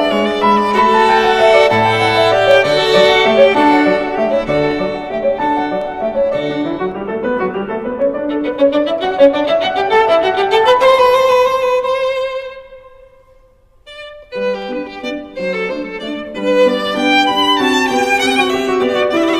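Instrumental background music carried by a violin melody. About ten seconds in, a rising run leads to a held note; the music then nearly dies away for about two seconds before starting again.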